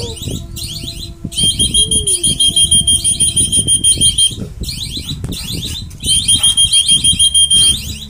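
A trilling whistle blown in two long blasts, the first about three seconds and the second about two, over a steady run of fast, high chirping.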